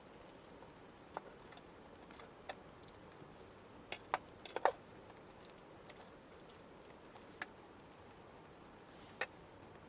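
Wood fire crackling: sparse sharp snaps and pops over a faint hiss, with a quick cluster of louder snaps about four to five seconds in.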